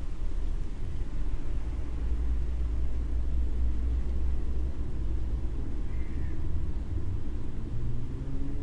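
Outdoor city ambience made up mostly of a steady low rumble, with a short faint call about six seconds in and a faint rising hum near the end.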